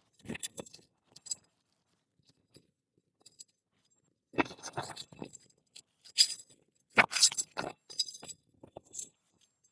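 Hand tools working asphalt roof shingles during a shingle repair: scattered clinks, crunches and scrapes in several short bursts with quiet gaps between, the busiest stretch in the second half.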